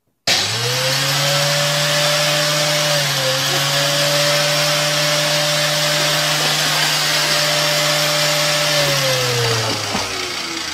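A loud electric motor starts suddenly and runs at a steady pitch with a strong hiss. Near the end it is switched off and winds down, its pitch sliding lower as it fades.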